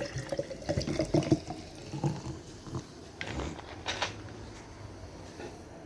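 Wet chewing and mouth sounds of someone eating a fried pastel, with scattered clicks and smacks, busiest in the first second and a half and sparser after.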